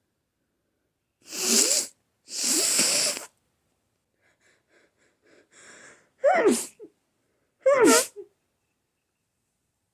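A person with a cold sneezing repeatedly in a sneezing fit. Two drawn-out, breathy sneezes come in the first few seconds, then faint sniffs and breaths, then two sharp, voiced sneezes about a second and a half apart whose pitch falls.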